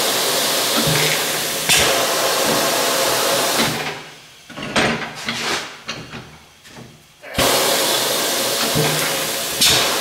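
Compressed air hissing twice as a tire changer's pneumatic bead breaker is worked against a skid steer tire, each hiss lasting about three and a half seconds. Between them come knocks and clanks of the tire and steel rim.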